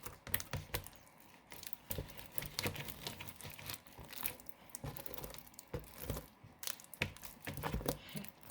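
Gel slime being squeezed and kneaded by hand, giving irregular sticky clicks and crackling pops.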